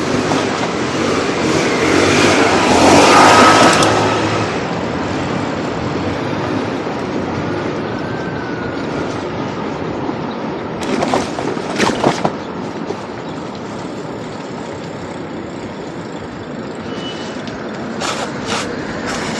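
Steady city traffic noise heard from a moving bicycle. A vehicle passes loudly about three seconds in, and there are a few sharp clicks or knocks around the middle and again near the end.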